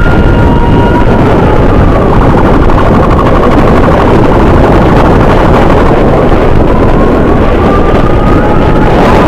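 Heavy wind rush and road noise of a motorcycle riding at speed, with an emergency siren's tones faint beneath it; the siren fades about a second in and glides back up near the end.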